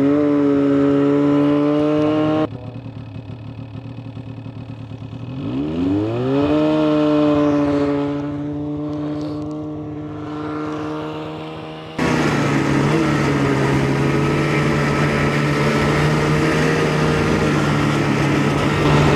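Snowmobile engine running, with its pitch rising steeply about six seconds in as it revs up, then holding a steady note. The sound changes abruptly twice, at about two and a half seconds and at twelve seconds.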